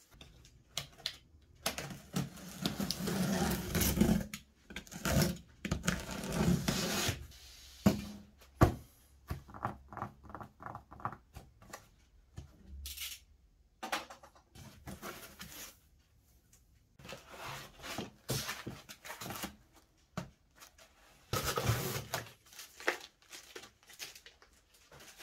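Unboxing a large cardboard box: packing tape being cut and torn, cardboard flaps and packing foam rustling and scraping, with irregular knocks. About a third of the way in there is a run of quick, evenly spaced scratches.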